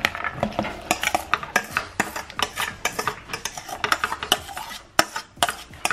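Cooked, rinsed macaroni being tipped from a metal colander into a slow cooker pot: a string of irregular clicks, clatters and scrapes as the metal colander knocks against the pot.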